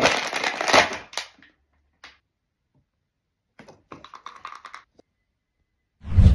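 A boxed Funko Pop's cardboard and plastic window packaging crackling and crinkling as it is crushed by hand, then a few scattered clicks and rustles. A heavy thump near the end.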